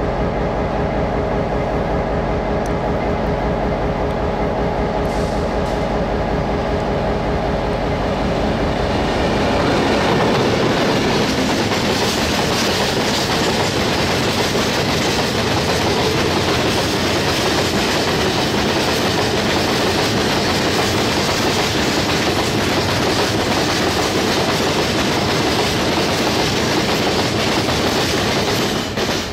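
Freight train passing close by: a locomotive followed by a long string of covered cement hopper wagons rolling past with a steady heavy rumble and wheel clatter. The sound drops off sharply near the end as the last wagon clears.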